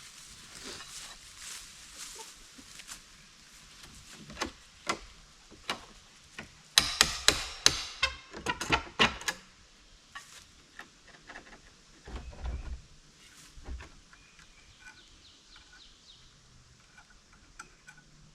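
Scattered knocks and clicks from hand-tool work on the blind's wooden framing, aimed at getting a metal hurricane strap off. A quick run of sharp hits about seven to nine seconds in is the loudest part, and a shorter cluster of knocks follows around twelve seconds.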